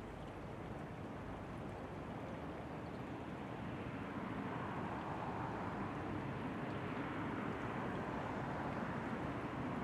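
Steady rushing background noise, slowly growing louder.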